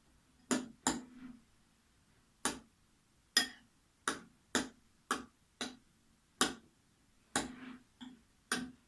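A stirring utensil clicking against a mixing bowl as a slime mixture with shaving foam is stirred: a run of about a dozen sharp clicks, roughly two a second, with a short pause near the start.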